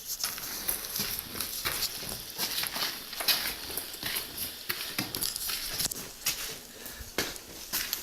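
A person's footsteps walking over rough ground, a string of irregular crunching, rustling steps a few per second.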